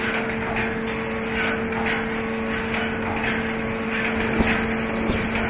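Schlatter MG700 wire mesh welding machine running: a steady hum with irregular clatter and knocks from the wire handling.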